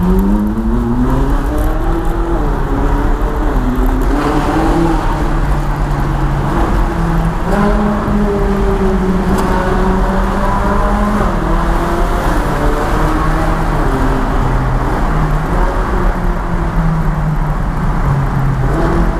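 Ferrari 458 Italia's V8 engine heard from inside the cabin while driving into and through a road tunnel. The revs climb over the first three seconds, then the engine runs on with its pitch rising and falling.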